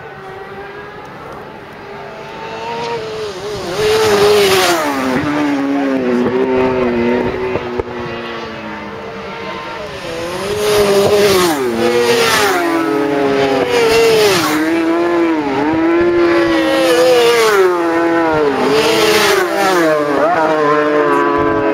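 Racing motorcycles at full throttle. The engine note climbs and then drops sharply at each gear change, over and over. It grows loud about four seconds in and is loudest in the second half as two bikes approach and pass.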